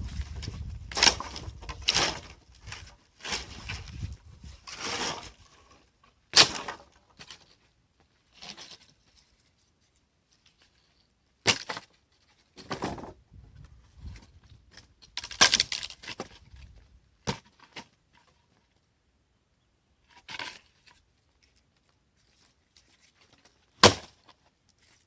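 Dry branches being handled and broken up for firewood: bursts of rustling and scraping, with several sharp cracks spread through, the loudest about six seconds in and near the end.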